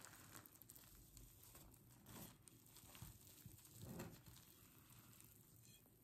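Faint handling sounds of hands pressing into and pulling sticky risen pizza dough away from a glass bowl: soft rustles and squishes, a few a little louder between about two and four seconds in.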